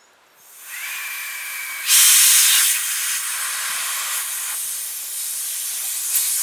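Factory nitrogen holding charge hissing out of a Senville mini split's small copper refrigerant line as its flare cap is loosened. It starts softly with a faint whistle, jumps much louder about two seconds in, then holds as a steady hiss. Nitrogen coming out is the sign that the line kept its factory pressure-test charge; none coming out would mean an issue.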